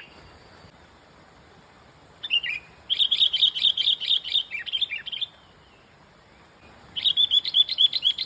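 Small bird chirping in fast runs of repeated high notes, about six a second: a couple of notes about two seconds in, a two-second run, then another run near the end.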